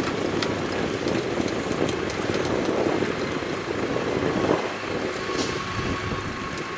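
Heavy construction machinery running: a steady engine rumble with scattered faint clicks and knocks.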